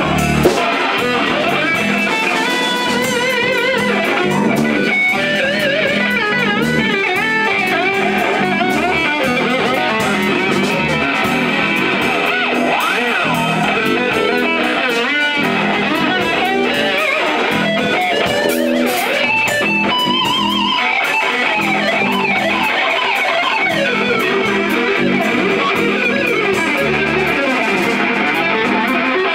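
Live rock band: an electric guitar plays lead lines full of bent, wavering notes over bass guitar and drums. There is a loud low thump about half a second in.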